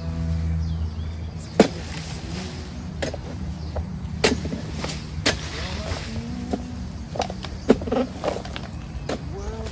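Sharp, irregular chopping strikes of a palm harvesting blade cutting into oil palm fronds, about six blows, over a steady low hum.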